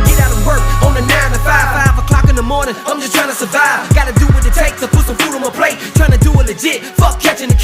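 Hip hop music with rapped vocals over a heavy bass line and a steady beat.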